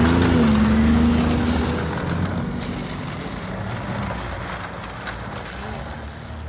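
Ski-Doo Skandic snowmobile engine running under throttle as the sled pulls away. Its pitch wavers for the first couple of seconds, then the sound fades steadily as it moves off.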